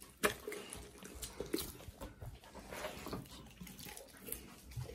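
Alaskan malamute chewing and tearing at a chunk of raw meat held in a person's hands, an irregular run of short smacks and clicks.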